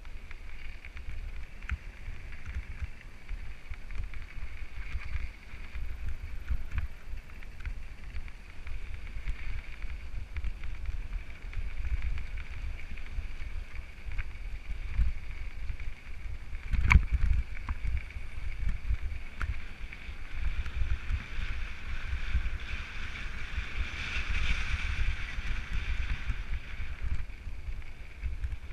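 Wind buffeting a moving microphone in an uneven low rumble, with a steady high hiss behind it that grows louder in the last third and fades just before the end. One sharp knock comes a little past halfway.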